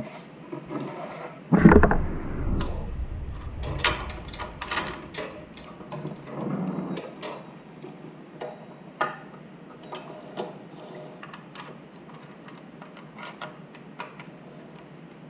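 Metal clicks and rattles of a #35 roller chain being handled and joined back together: a loud knock about a second and a half in, then many irregular small clicks that thin out toward the end.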